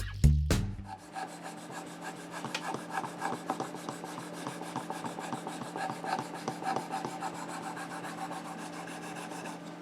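Sharpening stone of a Worksharp Precision Adjust sharpener scraping along a steel knife blade in quick repeated strokes, honing a dulled edge. Music cuts off about a second in.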